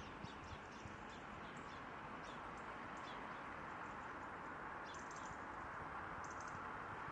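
Small birds chirping in short, quick high calls over a steady, even background rush.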